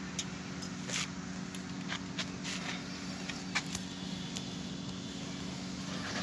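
An engine running steadily with an even hum, and a few light clicks and taps over it in the first few seconds.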